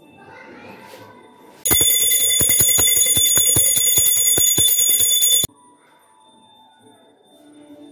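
Small metal puja hand bell rung rapidly, its clapper striking about five times a second with a bright sustained ring. It starts and stops abruptly and lasts nearly four seconds.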